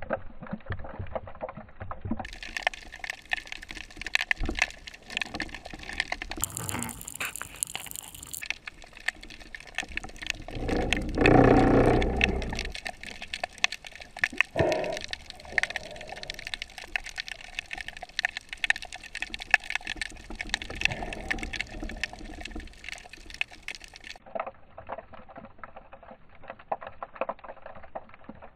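Underwater ambience over shallow rocks: a dense, irregular crackling and clicking, with a louder rush of water about ten seconds in that lasts a couple of seconds.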